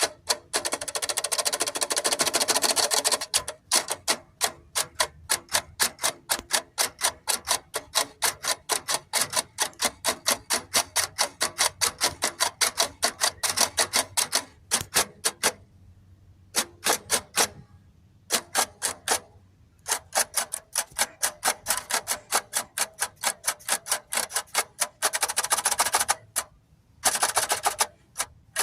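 A long run of sharp, evenly spaced clicks, about four or five a second, broken by a few short pauses.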